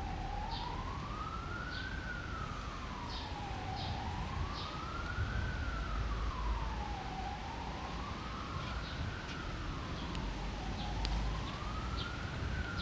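Emergency-vehicle siren in a slow wail, one steady tone rising and falling about every three and a half seconds, heard over a low rumble.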